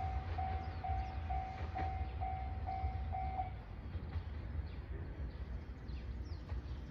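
Japanese level-crossing warning bell ringing about twice a second over the low rumble of a train, the bell stopping about three and a half seconds in.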